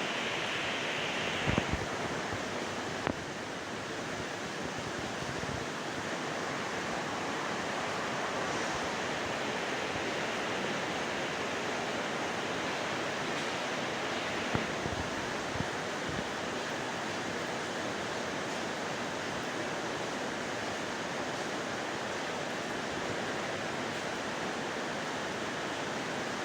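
Heavy rain falling steadily, an even hiss, with a few short knocks, at about a second and a half, about three seconds, and twice around fifteen seconds in.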